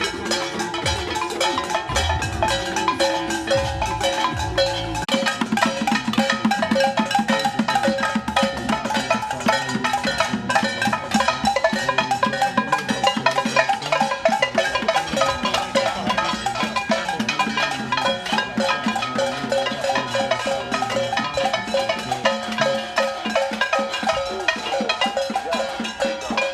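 A crowd of protesters banging pots, pans and other metal noisemakers: a dense, continuous clatter of overlapping strikes with ringing metallic tones.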